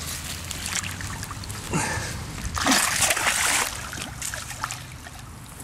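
A hooked pike thrashing at the water's surface beside the bank, splashing as a landing net is slid under it. The loudest splashing comes about two and a half seconds in and lasts about a second.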